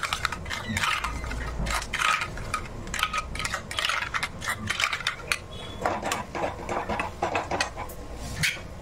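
A steel spoon stirring curd and ground spices in a stainless steel bowl, with repeated clinks and scrapes of the spoon against the bowl's sides. The clinking thins out near the end.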